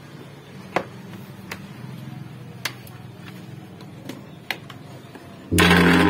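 Four or five sharp clicks a second or so apart over a faint low hum, as a mixer grinder's rotary speed switch is handled. Loud background music cuts in near the end.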